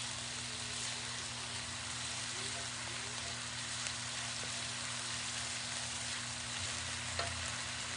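Garlic and lemongrass spices frying in a steel wok, stirred constantly with a wooden spoon: a steady sizzling hiss, with a light click of the spoon against the wok near the end.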